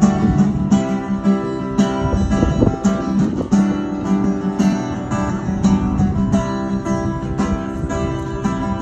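Acoustic guitar being strummed, chords in a steady rhythm.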